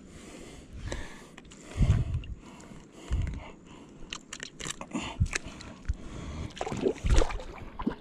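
Close handling and movement noise: irregular heavy thumps, scuffs and a run of sharp clicks as a person shifts about on a rock right at a body-worn camera's microphone.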